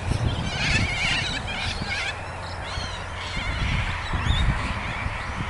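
A flock of white cockatoos screeching in flight: many harsh, overlapping calls that thin out after about two and a half seconds, over a steady low rumble.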